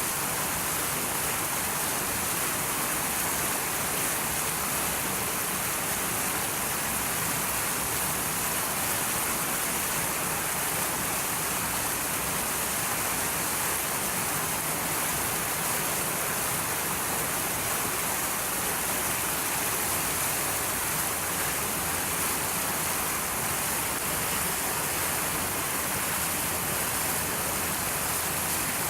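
Steady rushing noise of water, even throughout with no distinct sounds standing out.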